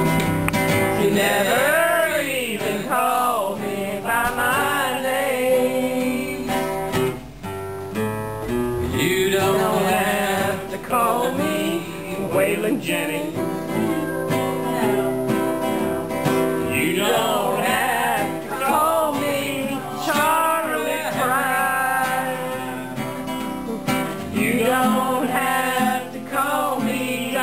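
A man sings and strums a steel-string acoustic guitar, with the voice sliding and wavering between notes over steady chords.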